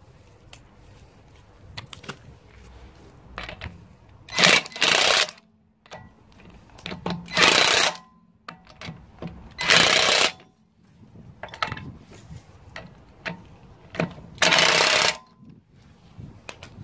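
Cordless impact wrench hammering on the wheel nuts in four short bursts, with light clicks between them as the socket is moved from nut to nut: the refitted wheel's nuts being run down tight.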